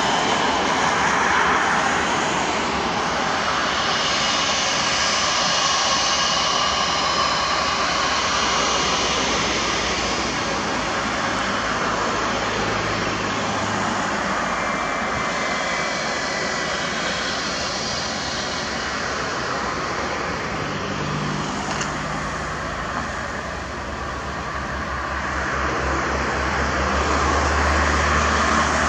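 Airbus A320 jet engines running steadily as the airliner rolls along the runway toward and then past the listener, a mix of fan whine and rumble; the sound dips slightly about three quarters of the way through, then grows again with a deeper rumble near the end.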